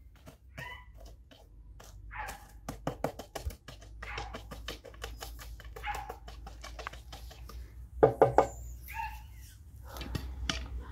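A dog barking and whining in short calls several times, loudest a little past the middle, with scattered sharp clicks.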